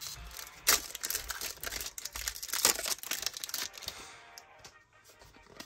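Foil Pokémon booster pack wrapper being torn open and crinkled by hand. The crackling stops about four seconds in.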